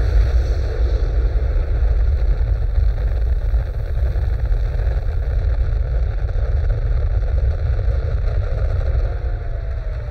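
Rocket-launch sound effect played through the hall's sound system: a loud, steady, deep rumble.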